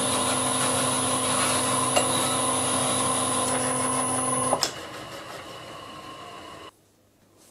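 Vintage Karger metal lathe running with a steady motor and gear hum while a twist drill sits in the spinning metal bar, barely cutting. About four and a half seconds in there is a click and the sound drops much quieter, then cuts to silence near the end.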